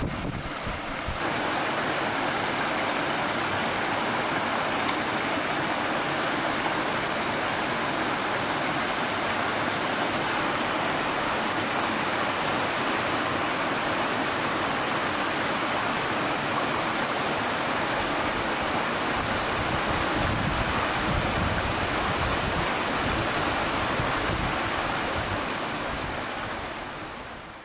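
Rushing stream tumbling over rocks in a small cascade: a steady wash of water noise that fades out at the end.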